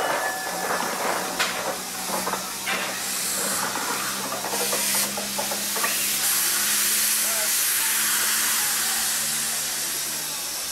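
1915 Baldwin 0-6-2T tank steam locomotive venting steam low at the front with a steady hiss that grows stronger about halfway through, a low steady hum beneath it and a few short knocks.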